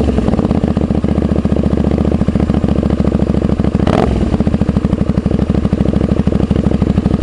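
Honda V-Twin Magna 250's V-twin engine idling through a slash-cut aftermarket muffler with an inner silencer fitted, a steady, even pulsing exhaust note. A brief sharp noise about four seconds in.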